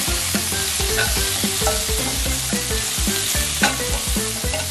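Diced chicken breast sizzling as it fries in a nonstick frying pan, with tongs turning and stirring the pieces.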